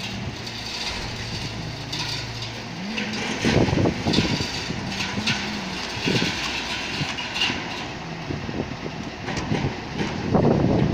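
Mobile crane's diesel engine running, its pitch shifting up and down as the revs change, with short noisy rushes about three and a half, six and ten and a half seconds in.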